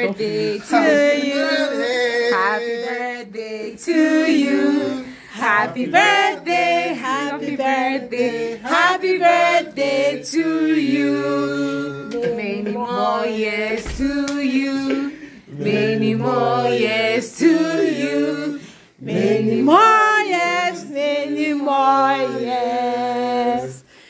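A group of people singing a celebratory song together without instruments, women's voices the most prominent, with a few short breaks between lines.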